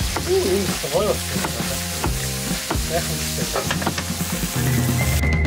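Diced potatoes sizzling in oil in a frying pan, stirred and scraped with a wooden spatula. The sizzle cuts off abruptly just before the end.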